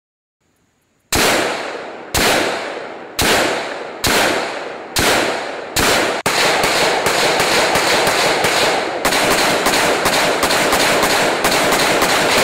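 AR-15-style rifle firing: six single shots about a second apart, each with an echoing tail, then a rapid string of shots at about five a second.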